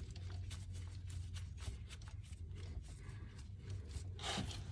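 Faint rubbing and scraping with many small scattered clicks, the handling noise of parts being worked by hand, over a steady low hum.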